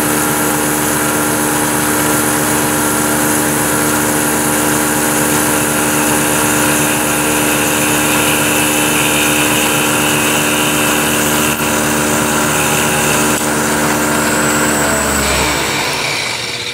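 Vertical milling machine running with a small end mill taking a light finishing pass along a groove in a metal part, a steady motor and spindle hum under a higher cutting hiss. About fifteen seconds in the spindle is switched off and winds down, its hum falling in pitch.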